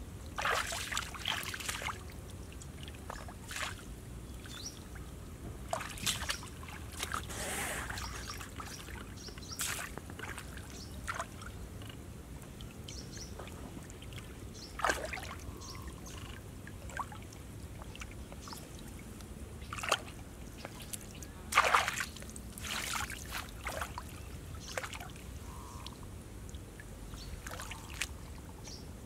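Shallow muddy water splashing and sloshing irregularly as a person wades through it and works a bamboo plunge basket, with a few louder splashes, the loudest about three-quarters of the way through.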